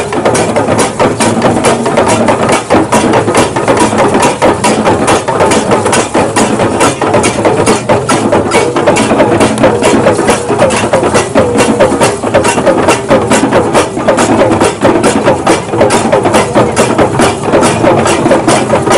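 Live percussion for a traditional Warba dance, playing a fast, steady beat without a break. A wavering pitched voice or instrument joins in over the beat in the latter part.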